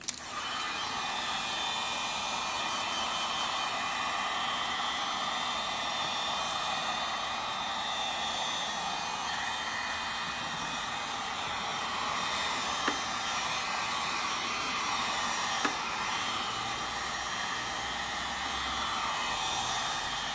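Handheld heat gun switched on and blowing hot air steadily over a leather cushion, drying a freshly applied coat of leather protector.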